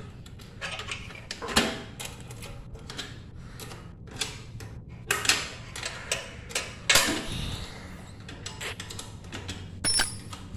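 Irregular metallic clicks, taps and clinks of small metal parts and a hand tool being handled, with a few louder knocks, during assembly of a bandsaw.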